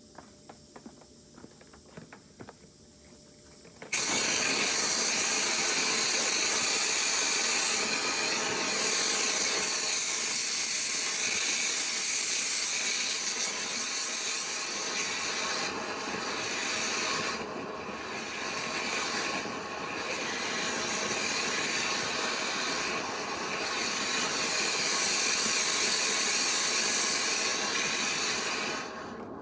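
Dryer vent cleaning equipment switching on about four seconds in with a sudden loud rush of air and running steadily, its sound wavering now and then, before cutting off near the end. A few light clicks come before it starts.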